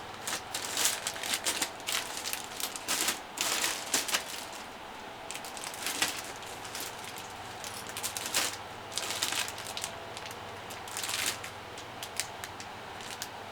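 Plastic model kit parts being handled: irregular clicks, crinkles and rustles of plastic sprues and packaging as parts are searched through.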